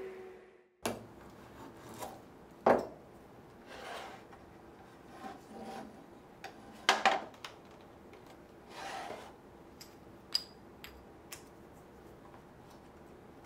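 Walnut tray pieces being handled on a wooden workbench: a few short scraping rubs of wood on wood, the loudest about three and seven seconds in, with softer swishes and scattered light clicks and taps.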